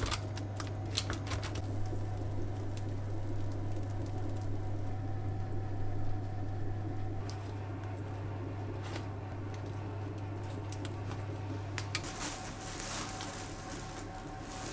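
Soft handling sounds of pizza rolls. Near the start there are a few rustles and clicks of baking paper as the raw rolls are pressed onto the tray. Then come quiet squishy sounds of a baked roll being cut and pulled apart, over a steady low hum that stops about twelve seconds in.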